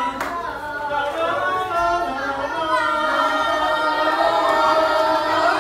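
A class of children calling out together in a drawn-out, sing-song chant, many young voices overlapping.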